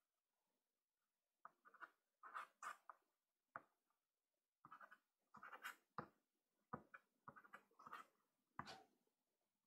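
Soft pastel stick scratching across sanded Pastelmat paper in a string of short, faint strokes, a few of them starting with a sharper tap.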